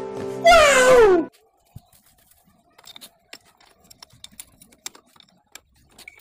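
A man's loud exclamation over music, pitch sliding down, cutting off about a second in. Then faint scattered clicks and light metal taps of a spanner working on a Yamaha Mio scooter's engine.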